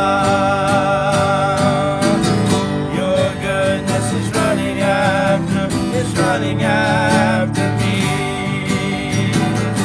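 Acoustic guitar strumming a worship song, with a voice singing long, wavering notes over it.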